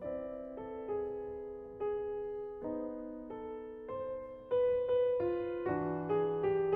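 Background piano music: a slow melody, a new note or chord struck about once a second, each ringing on and fading.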